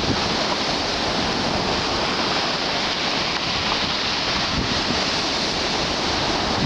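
Stormy Black Sea surf breaking continuously on a beach, a steady wash of waves.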